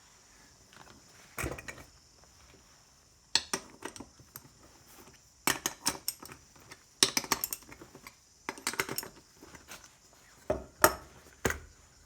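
Repeated clattering and clinking of metal parts and tools being handled and set down on a workbench, in short clusters of sharp knocks every second or two.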